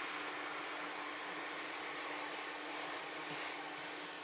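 Hot air rework station blowing a steady hiss of hot air with a steady low hum underneath, heating a 4116 DRAM chip on a circuit board to melt its solder for removal.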